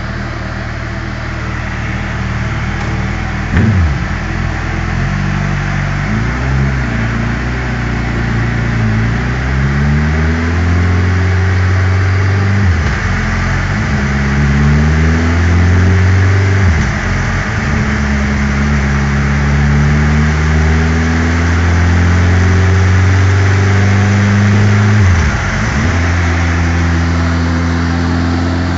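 2008 Suzuki Hayabusa's inline-four engine running in gear on a dynamometer, its pitch climbing gradually in steps, with several brief sharp dips in pitch, and growing louder in the later part.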